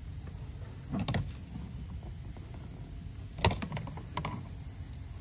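A brake booster pressure sensor and its plastic connector being clipped into place by hand: a short group of plastic clicks and rattles about a second in, then a sharp snap about three and a half seconds in, followed by a few lighter clicks.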